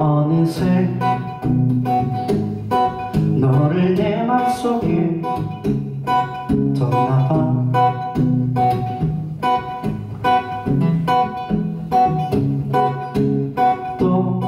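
Acoustic guitar strummed in a steady rhythm, with a man singing over it in places.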